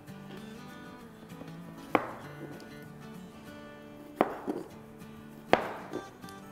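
Chef's knife slicing strawberries and knocking on a cutting board: three sharp chops about two seconds apart, with a couple of lighter taps. Soft background music runs underneath.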